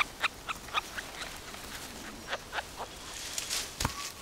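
Forest sounds: a scattered run of short, sharp clicks and ticks, quicker at first and then sparser, with one louder, deeper snap near the end.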